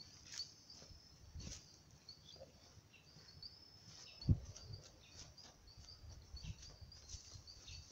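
Faint, repeated high-pitched chirping of wild birds or insects, with faint low rumble and one dull thump about four seconds in.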